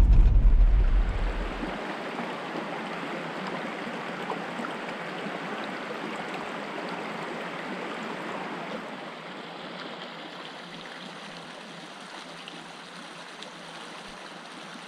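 Creek water rushing steadily. In the first second or so, a vehicle's low engine rumble that stops.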